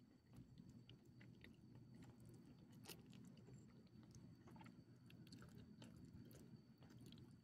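Small dog chewing and licking pieces of rotisserie chicken from a person's hand: faint, irregular wet clicks and smacks, with one sharper click about three seconds in, over a steady low hum.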